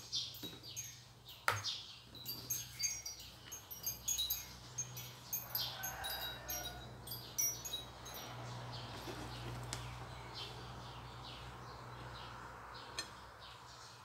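Small birds chirping repeatedly in short, high, quick calls, densest in the first half. A sharp knock comes about a second and a half in.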